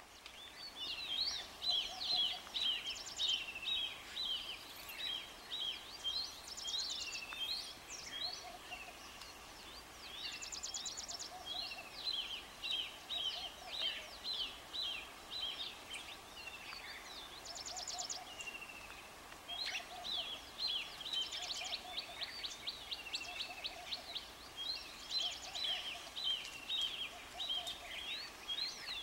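Wild birds singing and calling in a busy chorus of chirps, short trills and whistles, with a softer lower note repeating every second or two.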